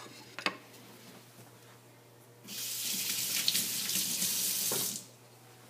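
Kitchen tap running for about two and a half seconds, turned on about halfway through and cut off sharply near the end.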